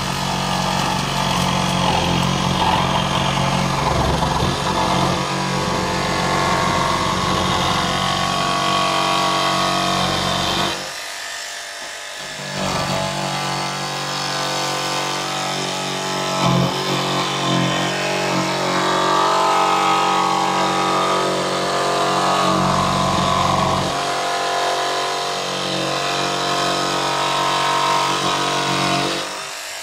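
Makita XVJ01Z 18-volt brushless barrel-grip jigsaw cutting through plywood, its blade reciprocating steadily. The cut goes quieter for a moment about eleven seconds in, then carries on until the saw stops at the very end.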